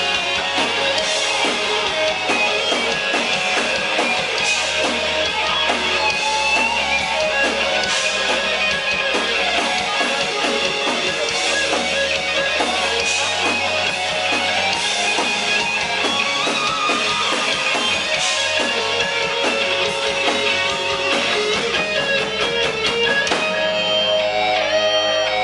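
Rock band playing live: an instrumental passage of electric guitars over bass and drums with a steady beat. Near the end the beat stops and held guitar notes ring on.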